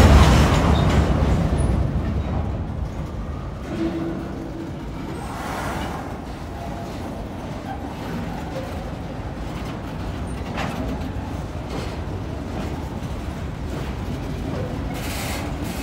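EMD GP15-1 diesel locomotive, a 12-cylinder 645 engine, running with a steady low rumble as it pulls a cut of freight cars. A loud rush of noise at the very start fades away over about two seconds.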